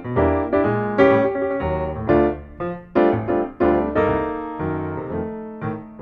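Intro music played on a piano-like keyboard: struck notes and chords over a bass line, each note starting sharply and fading.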